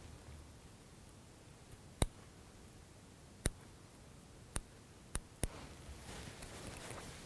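Small fly-tying scissors snipping: five sharp clicks spread over a few seconds as the excess tying material is trimmed off at the hook.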